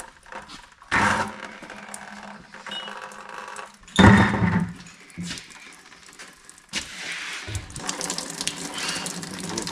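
Antifreeze pouring out of a truck's opened cooling system into a drain pan. There is a thump about four seconds in, and the flow settles into a steady hiss near the end.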